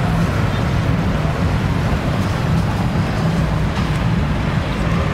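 Busy street traffic, mostly motorbikes, with a steady low engine drone.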